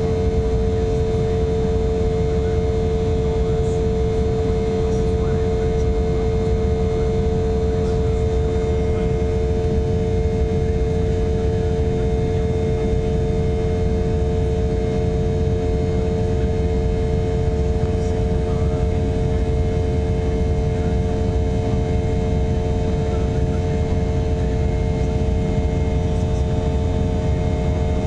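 Steady engine and airflow noise inside an Embraer 190 jet airliner, with a constant droning hum tone over an even low rumble.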